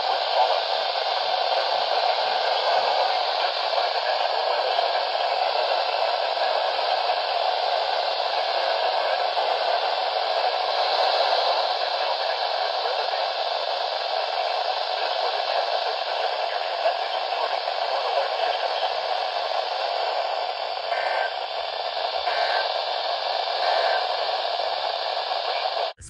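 Steady hiss of static from a handheld First Alert radio's speaker, with no clear signal coming through.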